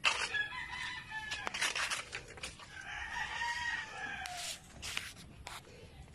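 A rooster crowing twice. The first is a short call about a second in; the second, longer crow rises and falls, starting near the three-second mark. Scattered crackling clicks run underneath.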